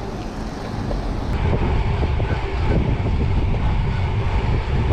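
Wind buffeting the microphone of a camera riding on a moving bicycle, a dense rumble that grows louder about a second in.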